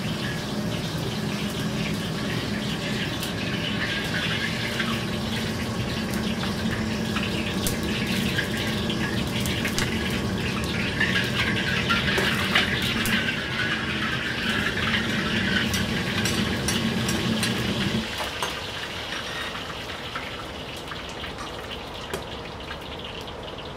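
Liquid sizzling and bubbling in a carbon-steel wok on a commercial wok range, over a steady low roar that cuts off suddenly about 18 seconds in. After that, softer crackling of egg frying in hot oil.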